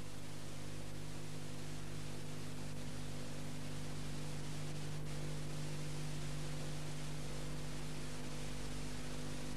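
Steady hiss with a low mains hum and no programme sound: the noise of VHS playback and capture after the recording ends.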